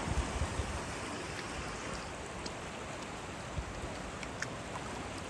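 River water running over a stony bed in a steady rush, with a few low buffets of wind on the microphone near the start.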